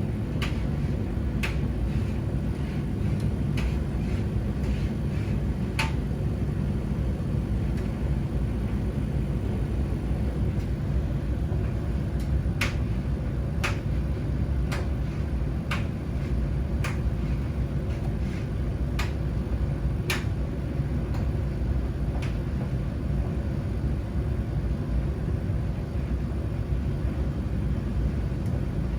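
Domestic washing machines and tumble dryers running together, a steady low rumble with a dozen or so irregular sharp clicks, most of them in the middle stretch.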